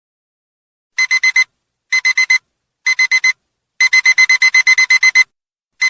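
Countdown timer's alarm going off with digital alarm-clock beeping: about a second in, three groups of four quick high beeps roughly a second apart, then a faster unbroken run of about a dozen beeps, and another beep starting right at the end.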